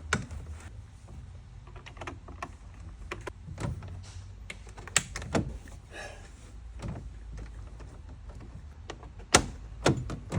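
Scattered clicks and taps with a few sharper knocks, from a handle and its speed clip being refitted by hand, over a steady low hum.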